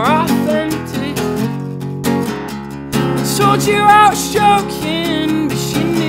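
A man singing to his own strummed acoustic guitar. A short sung phrase at the start gives way to a couple of seconds of guitar alone, then the singing returns about halfway through with held high notes.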